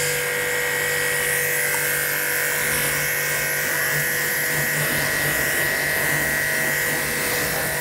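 Aimex D7 1800-watt electric pressure washer running steadily under load, its motor and pump giving a constant hum with a high-pitched whine, while the high-pressure water jet hisses as it rinses shampoo off a car body.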